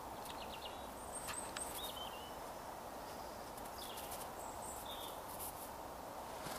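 A steady outdoor hiss, with small birds giving several faint, short, high chirps and brief falling calls scattered through it.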